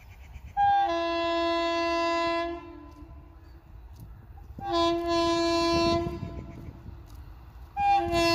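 Indian Railways WAP-4 electric locomotive sounding its horn three times: a long blast of about two seconds, a second of nearly two seconds, and a third that starts near the end, each opening with a brief higher note.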